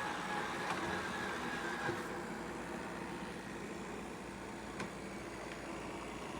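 Shark PowerDetect robot vacuum running: a steady whirring hum with a high whine that drops out about two seconds in, and a few light clicks.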